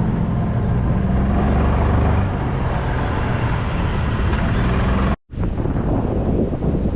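Motor vehicle running steadily while being ridden, a low hum with road and wind noise. It breaks off abruptly about five seconds in and resumes at once.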